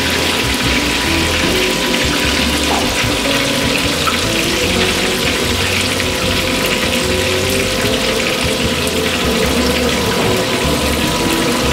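Hot oil bubbling and crackling steadily as a whole flour-dredged cabrilla deep-fries submerged in a large pan.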